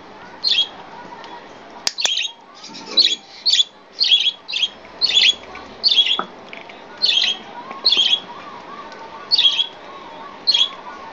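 Budgerigar giving short, sharp squawking chirps, about a dozen, coming about twice a second in the first half and spacing out toward the end. A single sharp click sounds about two seconds in.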